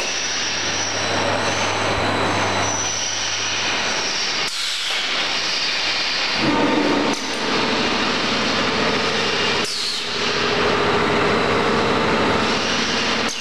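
Automatic woven-bag packing and palletizing line running: a steady, dense mechanical noise with a low hum and faint motor whines. The noise changes abruptly about four, seven and ten seconds in.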